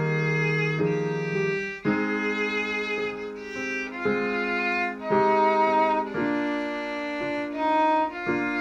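Instrumental closing music: a slow melody of held notes, changing pitch about once a second over a sustained accompaniment.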